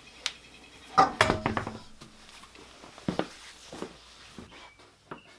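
Irregular metallic clinks and knocks of hand tools and parts being handled, the loudest a cluster about a second in and another near three seconds, some ringing briefly.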